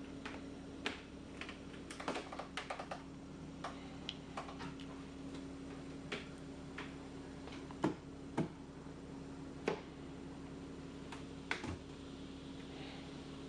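Faint, irregular clicks and taps, a few louder knocks among them, over a steady low hum.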